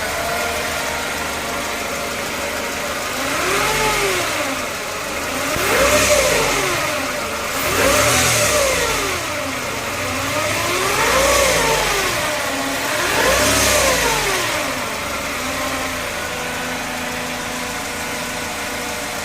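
Mercedes-Benz E220 W124 four-cylinder petrol engine running with the fan belt off: idling, blipped five times with the engine speed rising and falling, then settling back to idle. The owner suspects the noise it makes is from the timing chain.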